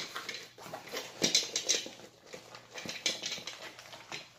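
A rolled diamond-painting canvas and its printed release paper being unrolled and smoothed flat by hand: irregular rustling and crinkling of paper and film.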